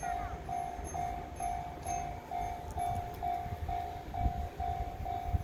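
Railway level-crossing warning alarm ringing, a single repeated ding a little over twice a second, over a low rumble of wind on the microphone.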